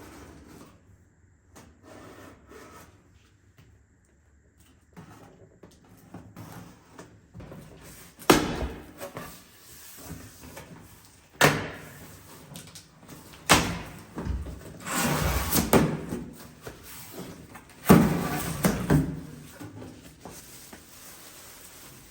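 Household handling sounds: a few sharp knocks and bumps a couple of seconds apart in the second half, with a longer stretch of rustling noise about fifteen seconds in.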